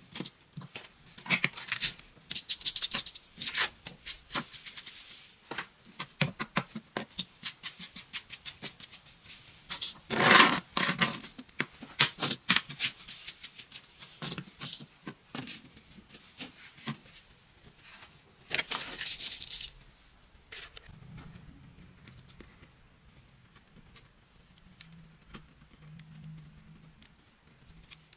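Loose coloured sand being swept and brushed by hand and with a fan brush across paper and a wooden board: irregular dry rustling strokes with scattered light clicks, the loudest and longest sweep about ten seconds in, growing quieter near the end.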